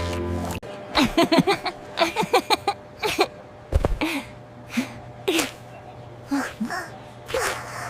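A cartoon kitten's voice making a string of short, squeaky sniffles and little catching breaths that build up to a sneeze. A quick run comes first, then more spaced-out ones, with a dull thump about four seconds in. Background music cuts off about half a second in.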